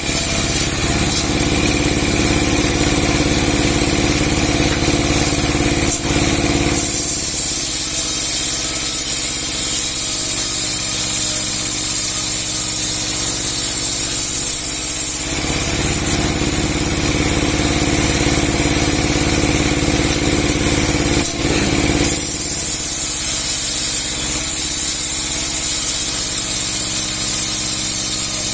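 A 30 hp sawmill machine with a 60 cm steel saw blade running loud and steady, an engine hum under a high hiss. The sound shifts back and forth between a stronger hum and a stronger hiss about every seven seconds.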